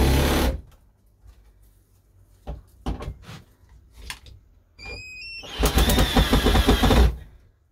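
Black+Decker cordless drill driving screws into a shelf bracket. A drill run ends about half a second in, followed by a few sharp knocks and clicks. Then comes a brief rising whine and a second run of about a second and a half with a fast rattle, which stops shortly before the end.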